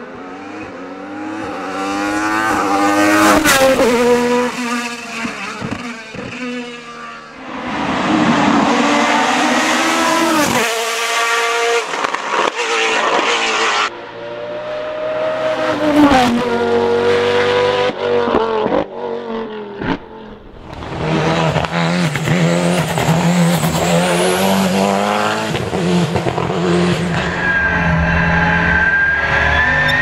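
Several racing cars in turn accelerating hard past the roadside, one after another, the first an Alfa Romeo 155 DTM; each engine climbs in pitch as it revs up and drops back at gear changes, with the sound dipping briefly between cars. Near the end a steady high whine rises slowly over the engine.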